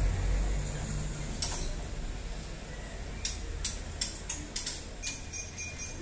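Caged white-rumped shamas making sharp, irregular ticks, about seven over four seconds. A low hum underneath fades away over the first two seconds.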